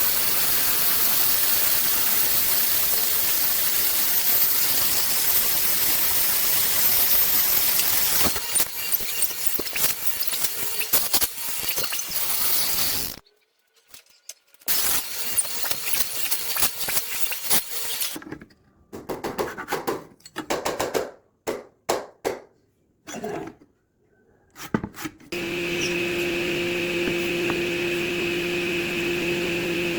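Power tools working wood: first a long, steady, hissing run, then a series of short bursts about a second long with silent gaps between them, and near the end a motor running at a steady pitch.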